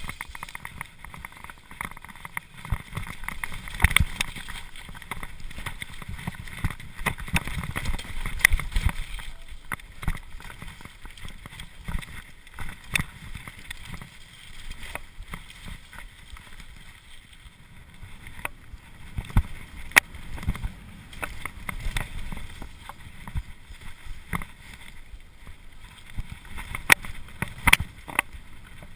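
Cube LTD Pro mountain bike ridden fast down a gravel and dirt trail: steady tyre rumble with wind on the camera microphone, and frequent sharp rattles and knocks from the bike over stones and bumps.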